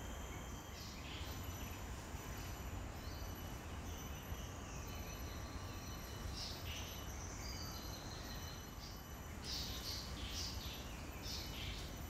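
Tropical rainforest ambience: a steady, high insect drone with short bird calls at intervals, several in quick succession near the end, over a low rumble.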